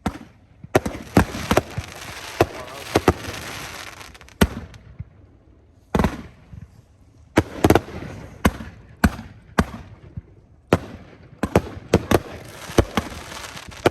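Spider Nebula firework cake firing: a long run of sharp shots and aerial bursts in uneven groups, with a noisy hiss between some of the volleys.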